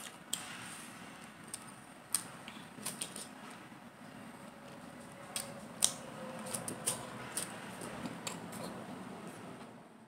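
Close-miked chewing of juicy fresh pineapple, with wet mouth clicks and smacks scattered irregularly through it, most of them a little after halfway.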